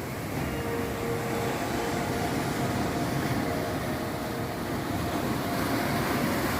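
Sea waves washing over rocks: a steady low rumbling surge with wind on the microphone, and a faint steady hum beneath it.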